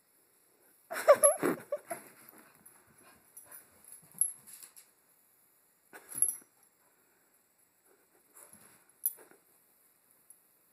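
A small terrier whining in a short burst of bending, high yelps about a second in, followed by a few quieter, brief sounds spaced over the following seconds.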